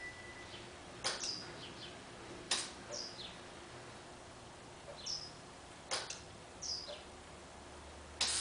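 Aftermarket HID headlight kit clicking sharply four times at uneven intervals as the bulb cycles on and off, the fault that suggests a defective ballast or igniter. Short, high falling chirps sound between the clicks.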